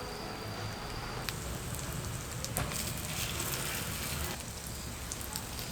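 Food frying in oil in a pan: a steady sizzle with scattered sharp crackles, which comes up about a second in.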